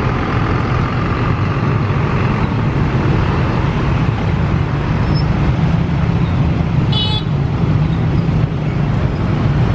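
Steady low rumble of road traffic with a bus engine running as it crosses. A short, high-pitched toot or squeal comes about seven seconds in.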